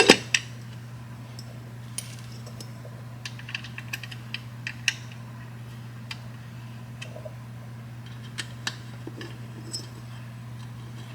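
Scattered light metallic clicks and clinks as the cam cover and its quarter-20 bolts are handled and the bolts started by hand, over a steady low hum.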